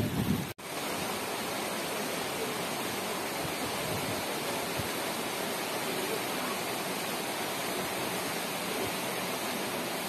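Waterfall and water cascading over rock ledges make a steady, even rush. The sound cuts out for a moment about half a second in, then carries on unchanged.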